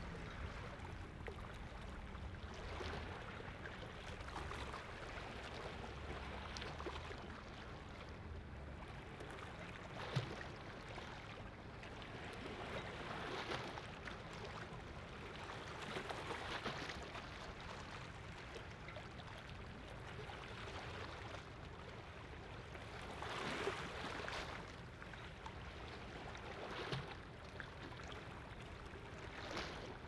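Small waves lapping and splashing at the water's edge in irregular swells every few seconds, over the low steady hum of a boat engine out on the fjord, which is strongest in the first third.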